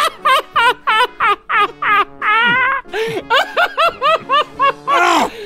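Two men laughing hard, in quick repeated high-pitched bursts of several a second with a few longer held whoops in between.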